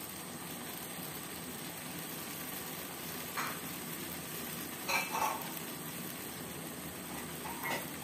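Watery chili-tomato sauce simmering in a wok with a steady sizzle. A metal spatula scrapes and knocks against the wok a few times: once about three and a half seconds in, twice around five seconds, and once near the end.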